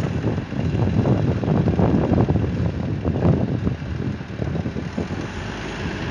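Volvo wheel loader's diesel engine running under load as the raised high-dump bucket tips its load into a truck trailer, with wind buffeting the microphone.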